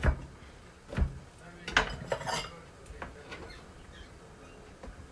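Kitchen knife chopping bacon on a plastic cutting board: two sharp knocks about a second apart, then a clatter of the knife and a small bowl being handled as the pieces are gathered, with a few light taps and another knock near the end.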